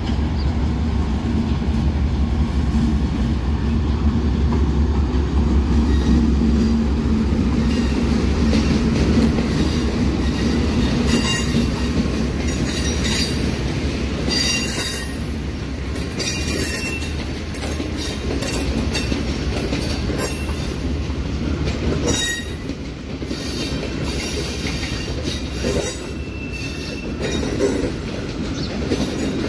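An arriving passenger train hauled by a diesel locomotive passes close by. For the first several seconds the locomotive's engine gives a loud, low, steady hum. Then the coaches roll past, their wheels clicking over the rail joints and squealing in repeated high-pitched bursts.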